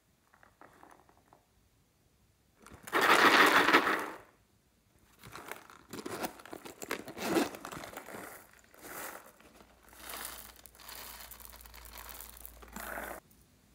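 A glossy vinyl lips-shaped pouch handled close to the microphone: a loud burst of crinkling and rubbing about three seconds in, then several shorter scrapes and crinkles, ending in a steadier rasp that cuts off sharply near the end.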